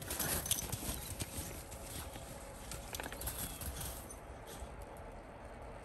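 Crunching in deep snow as a dog bounds through it on a leash and the walker follows, a run of crisp crunches in the first second or so, then lighter and sparser.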